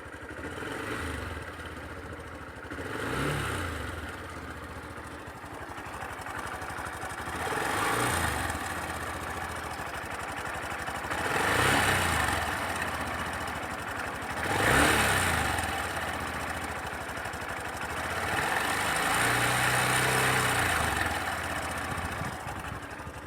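Sundiro Honda CBF125T's single-cylinder engine blipped about five times, each rev rising and falling back to idle, the last one held a little longer. A rattle from the timing chain shows when the throttle is closed, which the owner takes for timing-chain noise.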